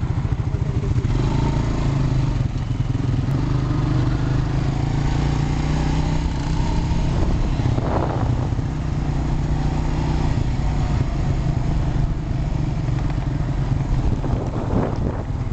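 Quad bike (ATV) engine running steadily under way, heard from the rider's seat, its pitch rising and falling a little with the throttle.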